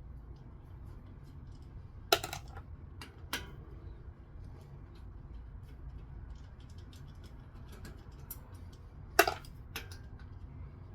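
Sharp metallic clinks of a Torx driver and rotor bolts being handled while a disc brake rotor is unbolted from a bicycle hub, with faint light ticking between them. The two loudest clinks come about 2 seconds in and near the end.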